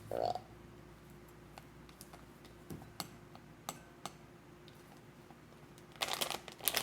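Scattered small clicks and taps from handling the kit's packaging, then about six seconds in a burst of bag crinkling as the white bag is handled to pour it into the bowl.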